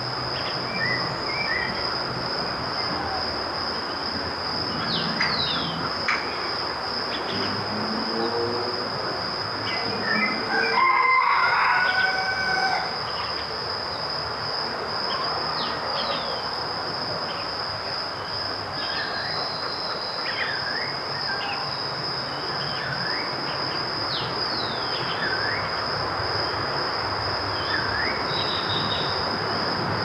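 Outdoor nature ambience: a steady high insect drone over a constant hiss, with scattered short bird chirps. About ten seconds in, a louder call of several pitched notes.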